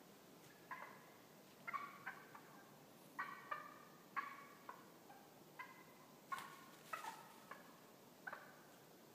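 Wild turkeys calling from the roost before fly-down: short, sharp notes, often in pairs, about every half second to second.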